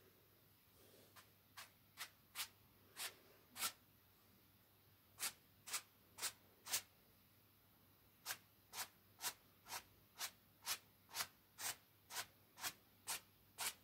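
Paintbrush strokes brushing across canvas: short scratchy swipes in runs, settling into a steady rhythm of about two quick strokes a second in the second half.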